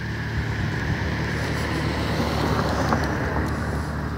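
A car driving past on the street, its engine and tyre noise swelling a little toward the middle and easing off near the end, with wind rumbling on the phone's microphone.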